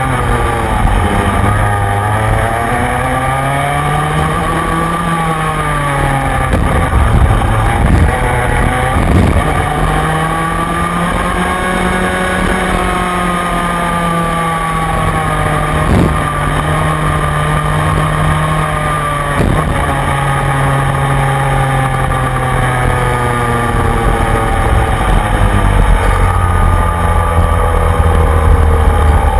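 Rotax Mini Max kart's 125cc single-cylinder two-stroke engine heard from on board at racing speed, its pitch rising and falling again and again as it accelerates out of corners and lifts into them. A few sharp knocks come through partway along.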